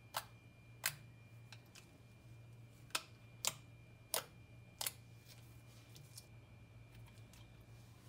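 Thick glossy slime being pressed and stretched, giving sharp air-bubble clicks and pops: about six distinct clicks in the first five seconds, a few fainter ones after, over a faint steady hum.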